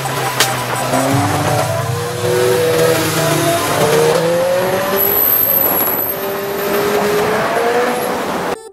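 Several sport motorcycle engines revving, their pitch climbing and falling as they accelerate and shift, over a rush of wind noise. The sound drops out abruptly just before the end.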